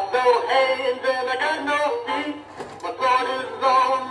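Emson Swingin' Sammy Swordfish animatronic singing toy playing its song: a male voice singing over backing music.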